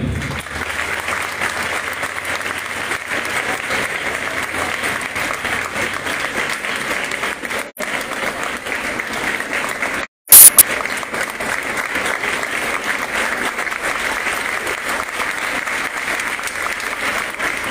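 Audience applauding steadily. About ten seconds in, the sound briefly cuts out and then comes back with a short, sharp, very loud crackle.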